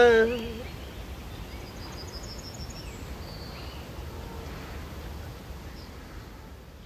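The last sung note tails off, then outdoor ambience follows: a steady low wind rumble with a short run of faint, high chirps about two seconds in, fading away near the end.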